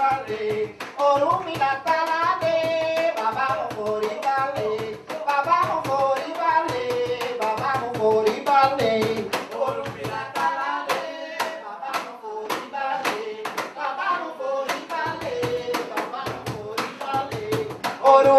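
A woman singing a melody over a cajón struck with the hands, its slaps keeping up a quick, steady rhythm.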